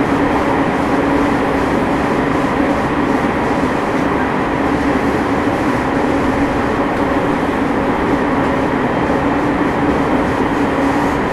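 Onboard running sound of a JR East 209 series 500-subseries electric train: steady rolling and motor noise with one low tone held throughout, and the air conditioning running.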